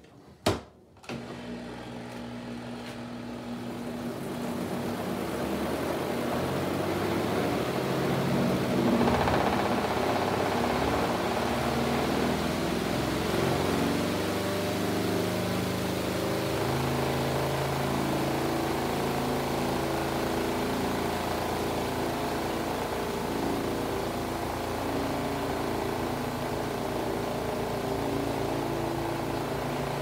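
Twin-tub portable washer's spin dryer: a click as the lid shuts, then the spin motor starts about a second in, spins up over several seconds and runs with a steady whir, spinning a load of towels.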